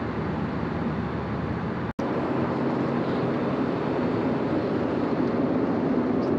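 Steady cabin noise of an Airbus A320 in flight: an even rush of airflow and engine hum. It cuts out for an instant about two seconds in, then carries on slightly fuller.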